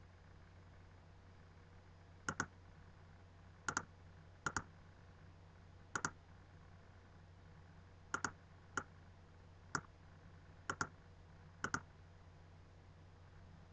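Computer mouse button clicking about nine times at irregular intervals, most clicks heard as a quick double tick of press and release, over a faint steady low hum.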